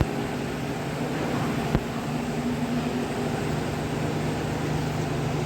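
A steady machine hum with a few low, steady tones, and a sharp click a little under two seconds in.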